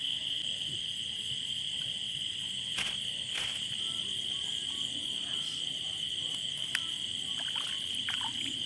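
Night chorus of crickets: a steady, high, continuous trill. A few short splashes and knocks come from hands working a gill net in shallow water, around three seconds in and again near seven seconds.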